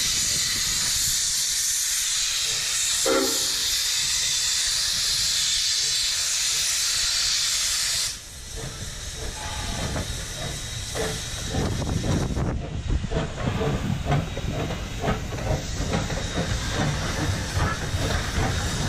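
Steam locomotive No. 207 letting off a loud, steady hiss of steam, which cuts off suddenly about eight seconds in. The train then rolls past with a low rumble and scattered clicks and clunks from the wheels and carriages.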